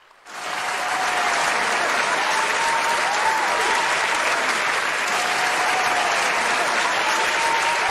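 Crowd applause that starts abruptly out of silence and holds steady.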